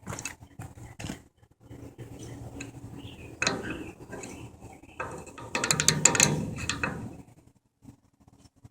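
Metallic clicking and clattering over a steady low mechanical hum; the clatter grows busier and louder about five and a half seconds in, then everything stops about seven seconds in.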